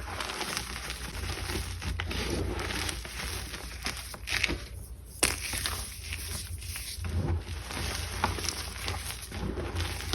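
Gym chalk being crunched, a run of dry crackling crunches with one sharp snap about five seconds in, over a steady low hum.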